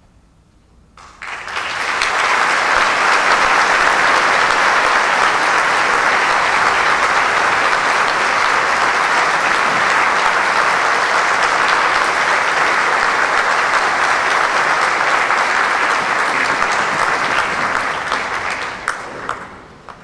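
A large audience applauding. The applause begins about a second in, holds steady, and dies away near the end with a few last separate claps.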